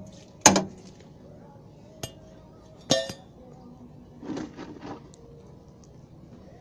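Metal tools knocking and clinking against metal under a vehicle during an oil change: a sharp knock about half a second in, a light tap, a ringing clink about three seconds in, then softer rattling and scuffing.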